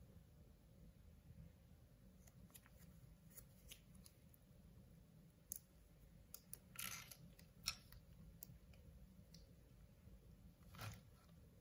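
Near silence with a handful of faint, brief crackles and ticks as paper stickers are peeled from their backing sheet and pressed onto a small plastic toy car.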